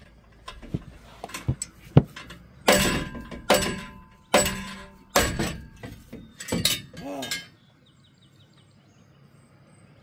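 The steel exhaust pipe of a Chevy squarebody pickup being knocked and twisted loose from its joint: a string of sharp metal clanks and thunks, some ringing briefly, that stop a couple of seconds before the end.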